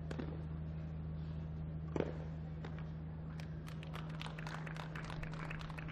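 Tennis ball struck by racquets, two sharp hits about two seconds apart, then scattered clapping from the crowd from about three seconds in as the point ends. A steady low hum runs underneath.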